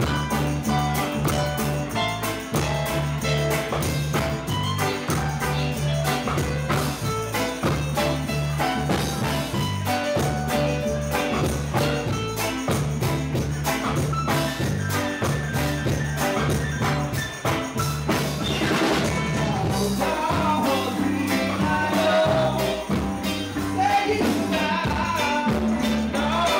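Live reggae band playing: a repeating bass line and steady drums, with keyboard and electric guitar.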